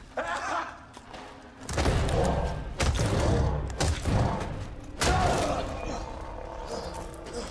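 Sound effects of a hand-to-hand fight: a run of about five heavy thuds and blows in the first five seconds, then quieter scuffling, with film music underneath.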